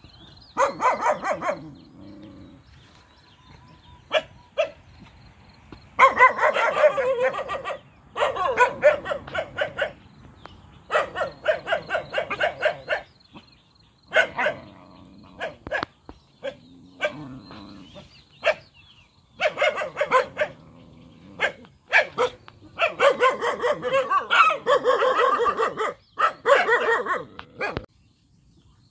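Young dogs barking in rapid volleys: bursts of quick barks a second or two long with short pauses between. The barking stops shortly before the end.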